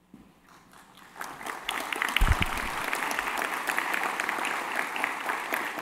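Audience applauding in a large hall. The applause breaks out about a second in and carries on as a dense patter of many hands, with a low thump about two seconds in.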